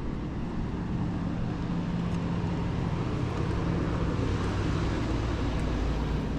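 A motor vehicle's engine running close by: a steady low drone with a held hum that fades and a deeper rumble that builds toward the end, over road traffic noise.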